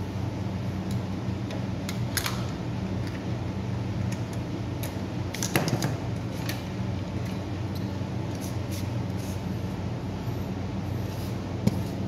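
Scattered small metallic clicks and clinks as an electric scooter's rear hub-motor wheel and its axle hardware are handled and worked loose, the strongest cluster about halfway through and a sharp single click near the end. A steady low hum runs underneath.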